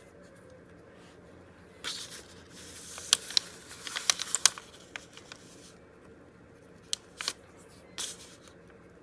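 Card and paper journal pages being handled and shifted, rustling for a couple of seconds with a run of sharp clicks, likely from a small metal binder clip, then a few more single clicks near the end.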